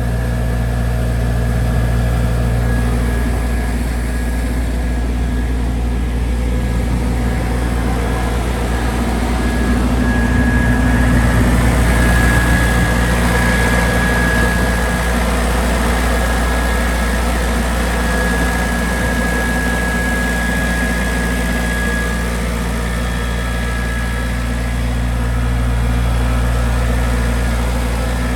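Atlas Copco XAS 87 KD mobile compressor running steadily on its Kubota V1505 T four-cylinder diesel, a constant low engine hum with a thin, steady whine above it.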